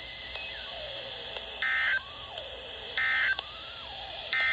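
NOAA Weather Radio sending its end-of-message SAME data code: three short, buzzy digital bursts about 1.3 s apart, which mark the end of the warning broadcast. Behind them are radio hiss and a faint whistling tone that wanders in pitch.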